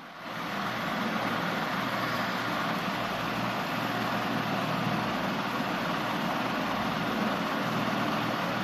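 Steady background noise with a low hum, setting in suddenly at the start and holding level throughout.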